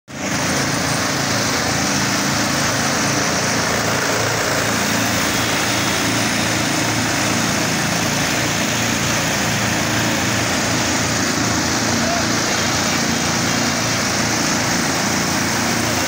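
Vögele Super 1800-2 asphalt paver running steadily while laying asphalt: a constant diesel engine drone with a dense, even hiss of machinery over it.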